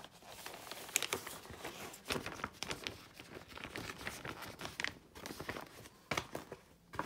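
Clear plastic kit sleeve and printed paper chart crinkling and rustling, with irregular sharp crackles, as the chart is pushed back into the sleeve.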